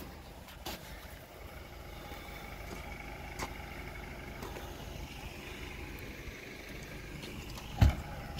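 Mercedes-Benz sedan engine idling steadily, with a single heavy thump near the end.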